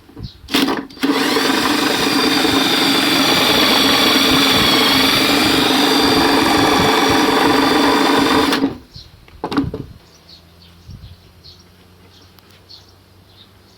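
A small electric motor runs at a steady high speed with a whine, starting abruptly about a second in and cutting off after about eight seconds. A brief rattle comes just before it starts and another just after it stops.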